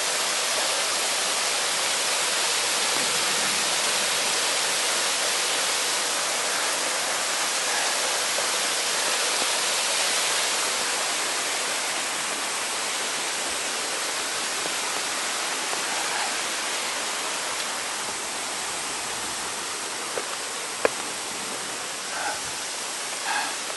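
Mountain stream rushing steadily over rocks, easing a little in the second half. A few short sharp clicks and knocks come near the end.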